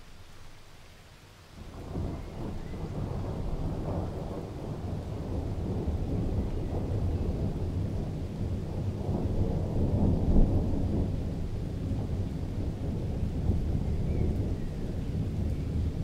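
Thunder: a long, low rumble that breaks in suddenly about two seconds in and keeps rolling, swelling and easing, without a break.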